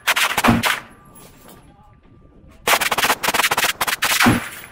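Full-auto 5.56 AR-style rifle firing two bursts: the first ends just under a second in, and the second starts past the middle and runs for nearly two seconds.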